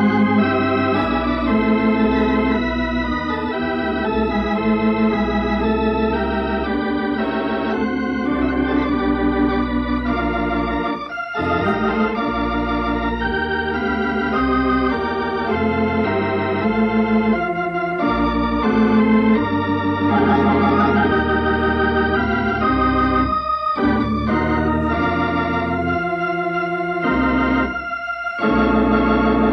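Organ music playing held chords and a slow melody, with a few brief breaks in the sound.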